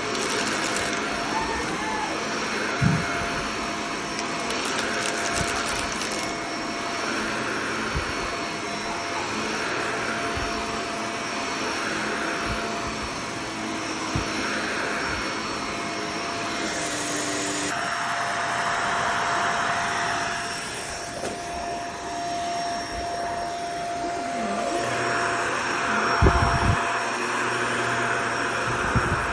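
Shark Navigator Lift-Away upright vacuum running steadily. Its suction noise swells and fades in a regular rhythm about every second and a half for the first half. There are a few short knocks, one near 3 s and a cluster near the end.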